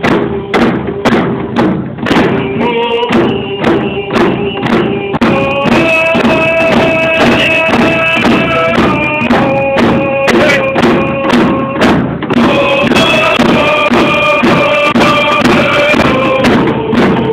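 Native American hand-drum song: several hand-held frame drums struck together on a steady, even beat, with group singing held on long notes over it.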